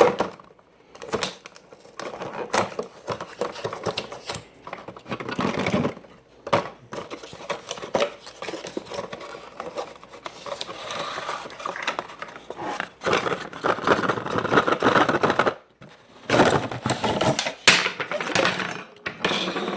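A set of four stainless steel egg rings being unpacked: packaging rustling, and the metal rings clinking and clattering against each other and being dropped.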